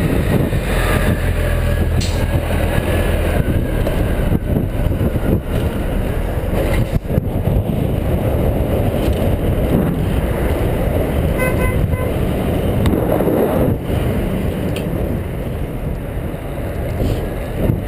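City traffic and a bus running close alongside, heard over steady wind rush on a riding cyclist's camera microphone, with a short run of beeps about twelve seconds in.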